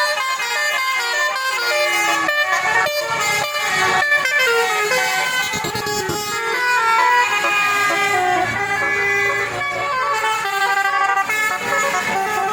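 Bus telolet 'basuri' musical air horn playing a melody: several horn notes sound together and step up and down in pitch with no pause.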